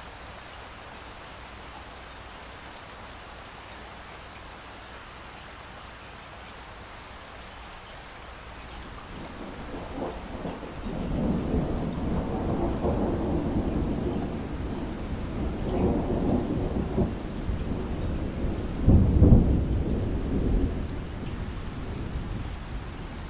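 Steady rain hiss, then from about nine seconds in a long rolling rumble of thunder builds over it. The rumble swells and fades several times and is loudest a few seconds before the end.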